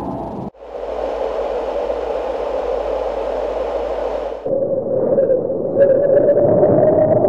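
A run of cartoon sound effects, one after another: about half a second in, a cut to a steady hissing rush lasting about four seconds, then a wavering drone.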